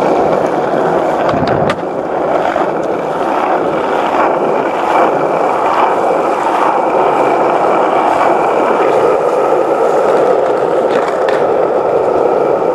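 Skateboard wheels rolling on wet asphalt: a loud, steady rumbling hiss, with a single knock about two seconds in.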